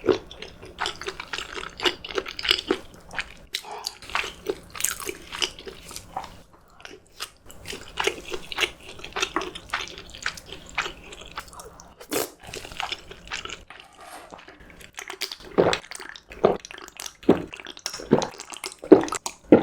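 Close-miked eating: wet chewing and lip smacks, many short, irregular mouth sounds, with a few louder ones near the end.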